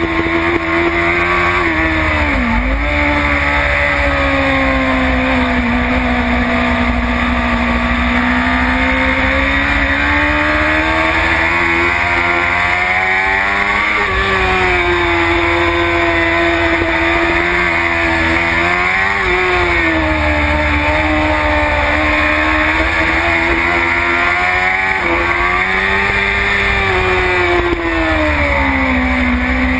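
BMW S1000RR's inline-four racing engine running hard at high revs, with steady wind rush. Its pitch falls and rises several times, dipping sharply about two and a half seconds in.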